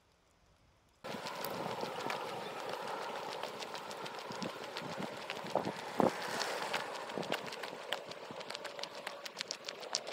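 Footsteps crunching on a gravel path, a dense run of irregular crunches that starts suddenly about a second in after near silence.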